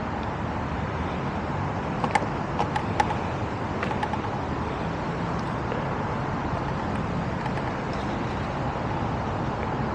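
Steady low rumble of a motor vehicle engine, with a handful of short clicks and chirps about two to four seconds in.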